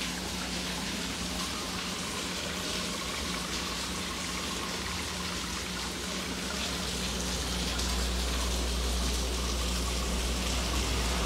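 Heavy rain hissing steadily, with the steady low hum of a running pond pump underneath; the low rumble grows louder about two-thirds of the way through.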